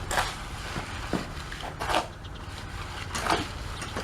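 Tool scraping through wet cement mortar in short strokes, three times about a second and a half apart, as cement is mixed and smoothed onto a hollow-block wall.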